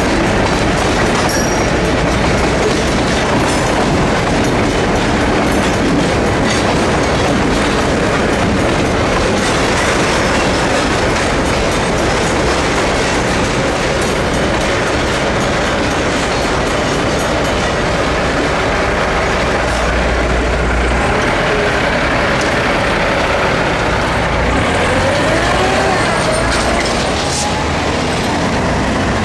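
Freight train of tank cars rolling past a railroad grade crossing, wheels clicking over the rail joints, with a steady rumble and the crossing's mechanical bell ringing while the signals flash. A couple of short rising squeals come about 25 seconds in.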